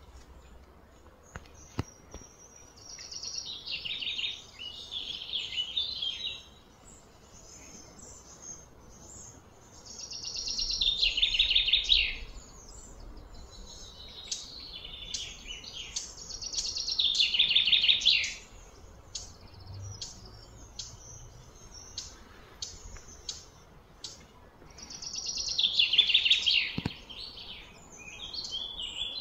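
Wild animal calls: shrill chirping trills in four bursts of two to three seconds. Each burst builds up and then stops abruptly. Short chirps are scattered between the bursts.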